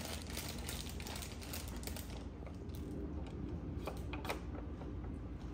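Plastic toy dollhouse wall panels being handled and clicked into place: a run of light, irregular plastic clicks and knocks, a few louder ones a little past the middle.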